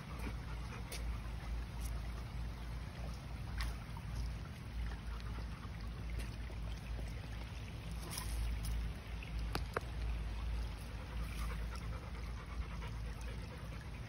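A pit bull panting, with a shallow creek trickling, over a steady low rumble and a few faint clicks.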